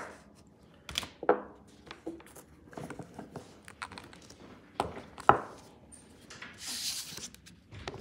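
Small clicks and knocks of nail polish bottles and caps being handled on a table, four of them sharper than the rest. A brief scraping hiss comes near the end.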